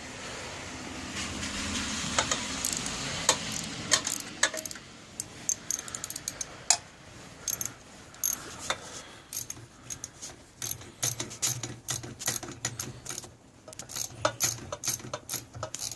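Hand ratchet wrench clicking in bursts as a socket turns the bolts on a pocket bike engine mount, with scattered metal tool clicks and knocks.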